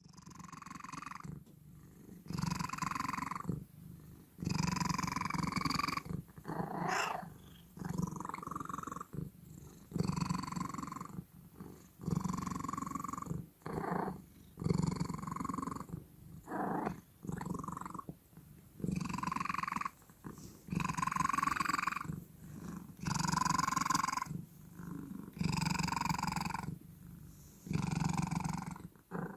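Domestic cat purring loudly with a pitched, voiced edge, in repeated breaths about a second or so long with short pauses between them, roughly one every two seconds.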